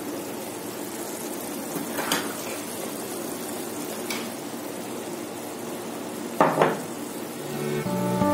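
Tomato, pepper and egg stew with olive oil sizzling steadily in a pot, with a couple of light knocks from the pot. About six and a half seconds in, a louder double clatter as the pot is set down on the counter. Acoustic guitar music starts right at the end.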